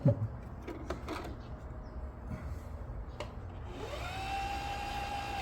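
Home sewing machine motor winding the bobbin: after a knock at the start and a few light clicks, it speeds up about four seconds in and holds a steady whine.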